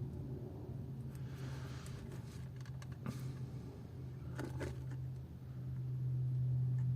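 Steady low electrical hum with a short faint hiss and a few faint clicks and taps from small-scale soldering work on a key fob circuit board.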